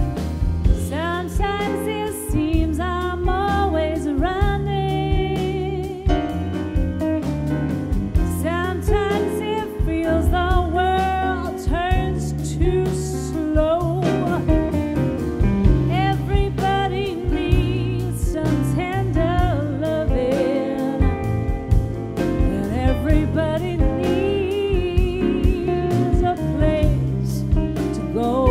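A live band plays while a woman sings lead, holding some notes with vibrato. She is backed by grand piano, electric guitar, bass and drums.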